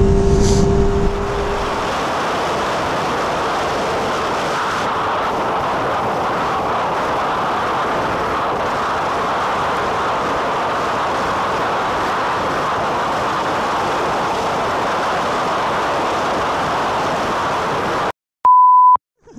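Steady rush of wind noise on an onboard camera on a Honda CBR 600F running at about 264 km/h, the engine buried beneath it. Near the end the sound cuts out suddenly to silence, with a short, steady beep.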